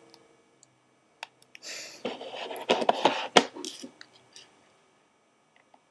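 Light clicks and a scraping rustle of a utensil working against a plastic candy mold and dish, with a sharper tap about three and a half seconds in.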